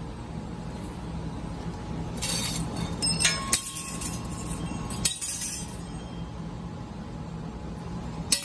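Steady hum of a tube laser cutting machine with sharp metallic clinks and clanks of cut metal tube pieces being handled: a cluster about two to five seconds in and another near the end.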